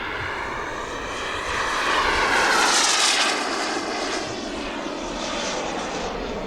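Twin JetsMunt Merlin model turbine jet engines of a large radio-controlled English Electric Lightning passing by in flight: a rushing jet noise that swells to its loudest about three seconds in, then fades.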